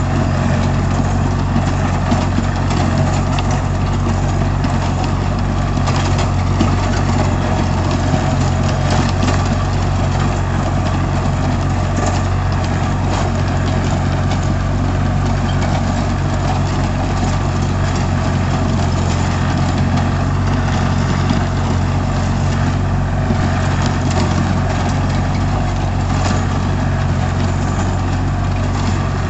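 Sonalika DI 32 RX tractor's diesel engine running steadily at a constant pace while it drives a rotavator tilling the soil, a continuous low drone with a busy clatter above it.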